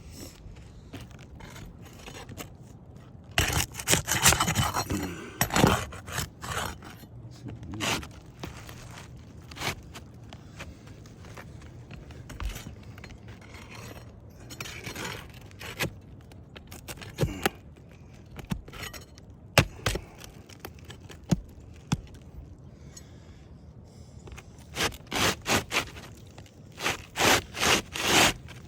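Asphalt roof shingles being pried and worked loose, with irregular rough scraping and rasping strokes and scattered sharp clicks; the scraping comes in a cluster a few seconds in and again in a run of strokes near the end.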